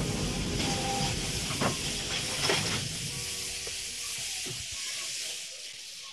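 Riding noise on a bicycle: steady hiss of wind and tyres rolling on asphalt, with a low rumble and a couple of light knocks and rattles. The rumble dies away about two-thirds of the way through and the sound fades near the end.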